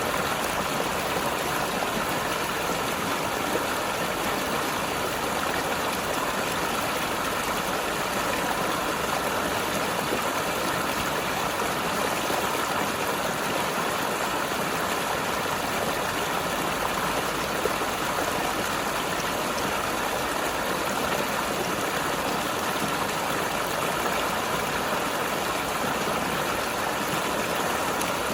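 Mountain river flowing and gurgling over rocks, a steady rushing of water.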